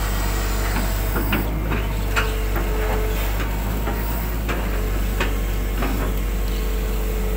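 Hitachi 120 hydraulic excavator's diesel engine running steadily, with scattered clicks and knocks as the bucket works through mud and water in a silted drainage ditch. A faint whine comes and goes.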